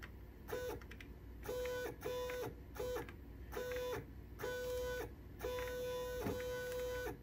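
Large stepper motor jogging back and forth in about eight quick moves, each a steady high whine with overtones that gets longer toward the end. Each move starts at full pitch with no wind-up, because the acceleration is set high, and ends with a brief drop in pitch as the motor stops.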